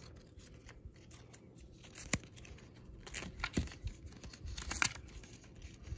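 Faint handling noise from small magnetic building blocks: rustling with a few separate light clicks as pieces are moved and snapped together.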